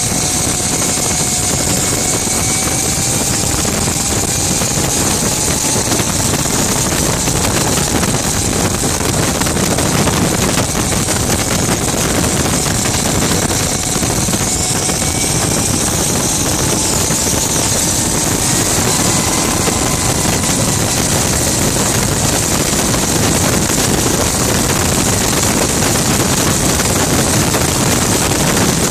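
Rover Jet 1 recreation's gas turbine engine running while the car laps, heard from the open cockpit: a steady high whine over loud rushing noise, with a fainter tone that slowly rises and falls as the driver works the throttle.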